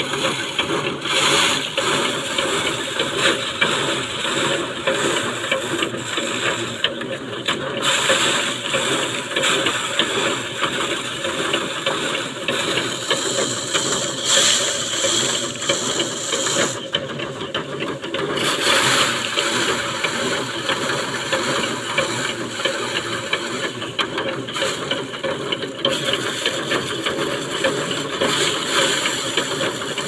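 Foot-pedal rice drum thresher whirring and rattling continuously as bundles of rice stalks are pressed against its spinning toothed drum, the clatter swelling each time a fresh bundle is fed in.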